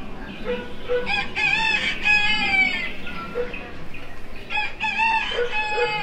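Recorded farmyard sound effects: a rooster crowing, about a second in and again near the end, over hens clucking.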